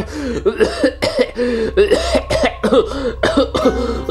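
A man's voice, performing a cartoon T-Rex, makes a rapid string of short wordless vocal sounds, about three or four a second, each rising and falling in pitch, over a steady low hum.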